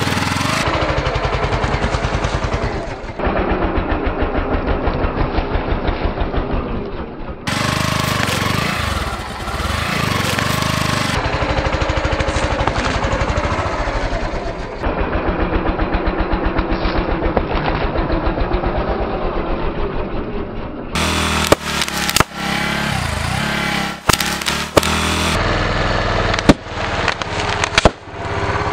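Motorcycle engine running with a fast, even exhaust pulse while its tyre rolls over and crushes objects. In the last part come several sharp pops and cracks as things burst under the tyre.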